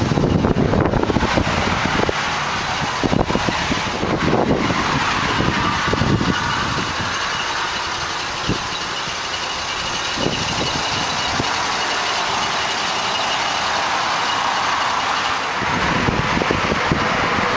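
Wind buffeting the microphone in gusts over a steady rush of highway traffic noise.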